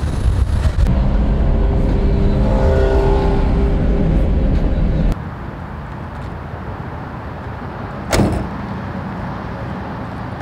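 Turbocharged V6 of a Buick Grand National running at highway speed, heard from inside the cabin with heavy low road and wind noise. It cuts off abruptly to quieter outdoor background, and about eight seconds in a car door slams shut.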